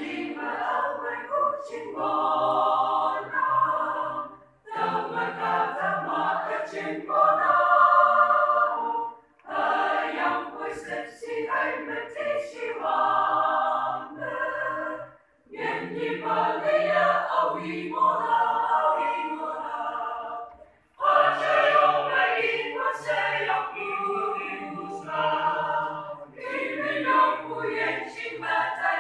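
A choir singing in sung phrases, with four short breaks between phrases.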